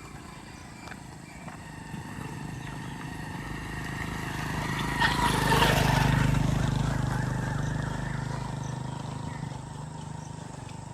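A motor vehicle passing close by: its engine hum grows louder for a few seconds, is loudest about six seconds in, then fades away.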